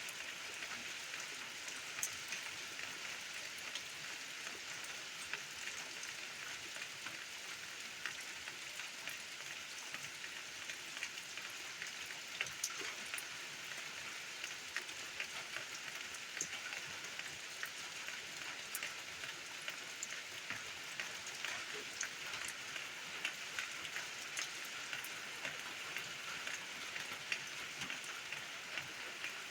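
Steady rain falling, an even patter with many separate drops ticking sharply throughout.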